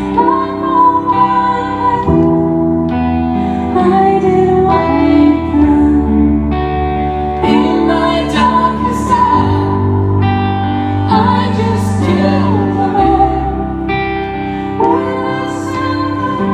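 A woman singing while accompanying herself on a Nord Stage keyboard, the voice carried over sustained chords and low bass notes.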